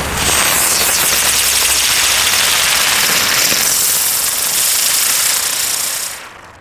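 Lotus-flower ground spinner firework spinning on asphalt, giving a loud, steady hiss with a fast flutter as it throws sparks. It burns out abruptly near the end.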